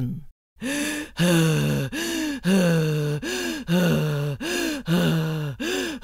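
A voice acting out a monster's panting, a rhythmic breathy 'hih-huh, hih-huh' repeated about five times, roughly one pair a second.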